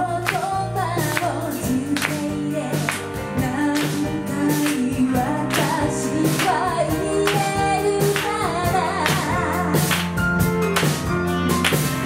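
Live pop band playing: female voices singing over drum kit and electric guitars, with a steady beat of drum hits.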